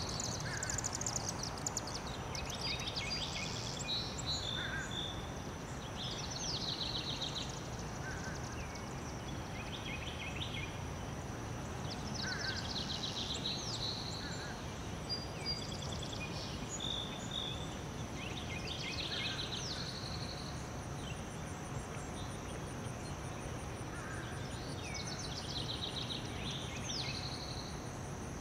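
Outdoor wetland ambience: small songbirds out of sight sing short, quick phrases that come back every few seconds. Under them run a steady thin high-pitched tone and a low even hiss.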